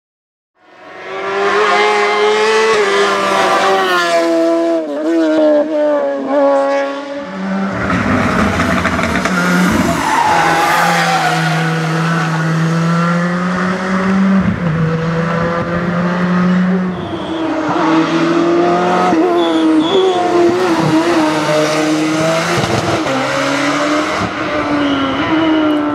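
Rally car engine at full race pace, revving hard and falling back with each gear change, its pitch rising and dropping again and again. Tyres squeal through a tight hairpin.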